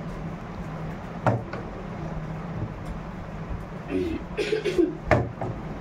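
A partly filled plastic drink bottle knocking down onto a cloth-covered table in bottle flips, twice: once about a second in and once near the end.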